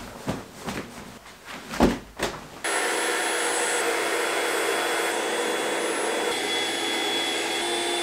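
Rustling and a sharp knock as a vinyl air mattress is unfolded. Then, from about two and a half seconds in, an electric air pump runs with a steady, even whir, inflating the Intex air mattress.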